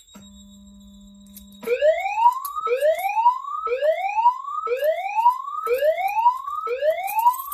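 Fire alarm voice-evacuation speakers driven by a Notifier DVC (digital voice command) playing a whoop alert tone: six rising sweeps about a second apart, the alert ahead of a lockdown message set off from a security push station. A faint low hum comes from the speakers for the first second and a half before the whoops start.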